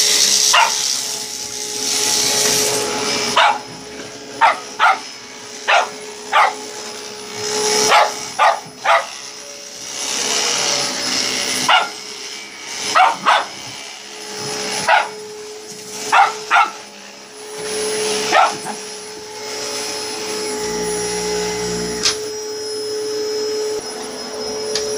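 Vacuum cleaner running with a steady drone while a dog barks at it over and over, in short sharp barks, singly and in quick pairs and triples. The barking stops about three-quarters of the way through, and the vacuum keeps running.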